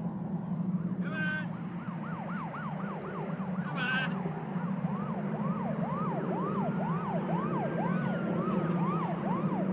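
City street ambience: an emergency-vehicle siren sweeping quickly up and down, about two to three sweeps a second, over a steady low traffic hum. A second, slower wailing siren rises and falls underneath near the end, and two short high calls sound about one and four seconds in.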